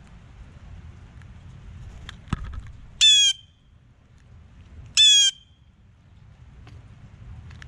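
Blue jay giving two loud, harsh jay calls about two seconds apart, each about a third of a second long. A short thump comes just before, as the bird lands on the wooden platform feeder, over a low patter of rain on the camera.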